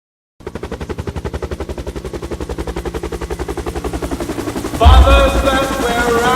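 Soundtrack sound design: a rapid, evenly spaced pulsing, about eight or nine beats a second, like machine-gun fire. About five seconds in, a loud deep hit lands and a sustained musical chord with a voice-like tone comes in over it.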